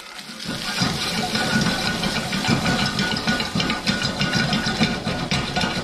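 Diced bacon sizzling and crackling as its fat renders in a pan over a gas flame, stirred with a wooden spatula. The sizzle fades in over the first second, then holds steady with many small pops.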